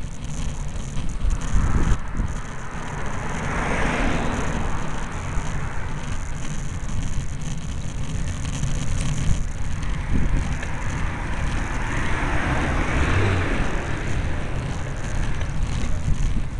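Wind buffeting the camera's microphone with road rumble while riding a bicycle uphill on a paved road; twice, about four and twelve seconds in, a hiss swells and fades over a few seconds.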